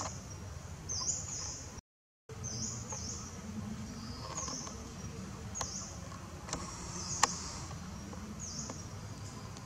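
A bird calling over and over with short, high chirps, mostly in pairs, every second or two, with a few sharp clicks in between. The sound cuts out completely for a moment about two seconds in.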